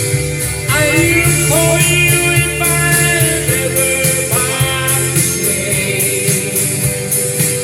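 Music: the closing bars of a folk-country song, with guitars, a gliding melody line and a steady beat ticking on a cymbal.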